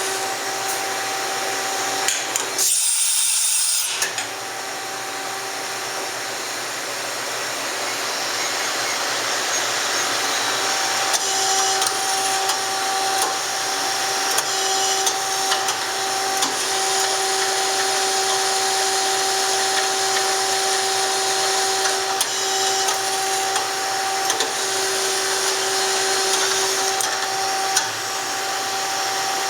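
Kitamura Mycenter 4 CNC vertical machining center running, a steady whine over an even hiss. About three seconds in, the whine drops out for a moment under a short burst of high hiss.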